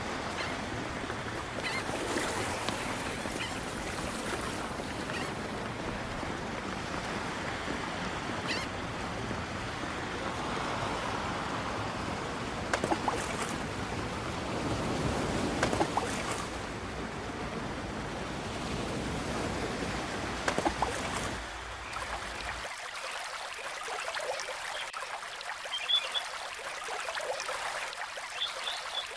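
Added sound effect of ocean surf washing on a shore, a steady rushing with a few short splashes. About 22 seconds in, the deep part of the sound drops away, leaving a thinner water sound with faint, short, high chirps.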